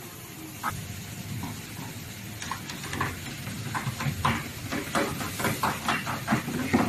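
A hammer tapping on the seam strip between two table boards, driving it into the slot. A few single taps, then a quicker run of about four taps a second in the second half.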